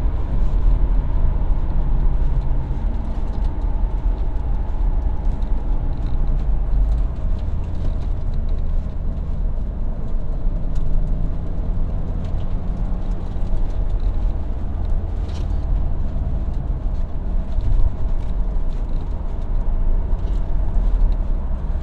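Subaru WRX STI's turbocharged 2.5-litre flat-four engine running steadily as the car drives along, with tyre and wind noise.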